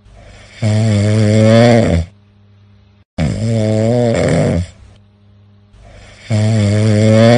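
A person snoring: three long, loud snores, one about every three seconds, with much quieter breathing between them.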